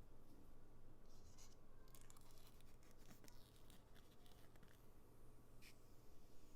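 Faint rustling and scraping of hands handling packaging, with scattered small clicks.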